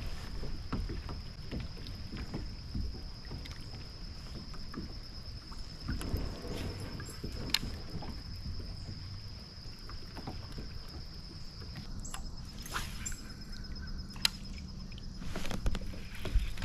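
A kayak on a creek: water swishing with scattered small knocks and clicks against the hull, over a thin, steady high tone.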